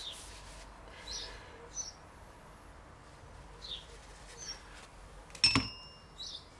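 A steel gearbox shaft set down on the workbench about five and a half seconds in: a single sharp metallic clink that rings briefly. Birds chirp faintly several times in the background.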